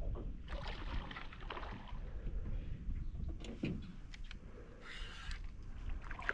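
Irregular splashing in shallow water from a hooked peacock bass thrashing on the line, over a low steady rumble.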